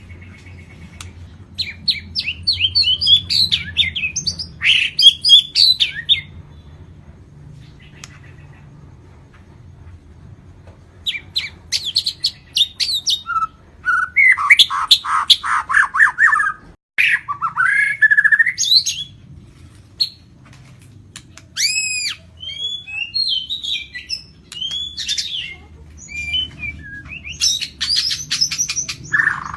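White-rumped shama (Lampung murai batu) singing in long, rich bouts: rapid runs of varied whistles, trills and chattering phrases, broken by pauses of a few seconds. A steady low hum runs underneath.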